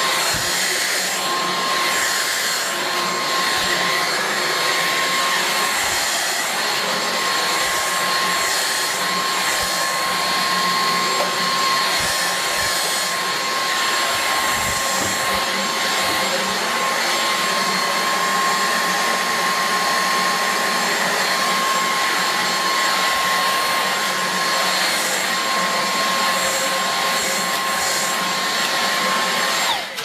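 Dyson V6 Absolute cordless stick vacuum running steadily with its small hard-floor head on a laminate floor: a steady high whine over a rushing airflow. Right at the end it drops away briefly and spins back up.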